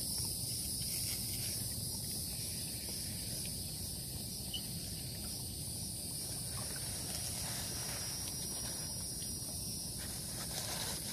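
Steady, high-pitched insect chorus with a low, even rumble underneath.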